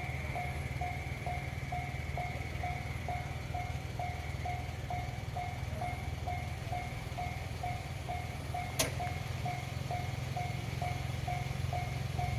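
Japanese railway level-crossing warning bell ringing, an electronic ding repeating about twice a second, over a steady low rumble. A single sharp click about two-thirds of the way through.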